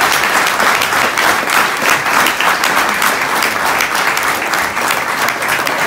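An audience applauding, steady and loud.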